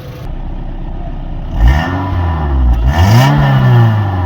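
Suzuki Swift's 1300 cc inline four-cylinder 16-valve engine idling, then revved twice from about a second and a half in, the pitch rising and falling with each blip.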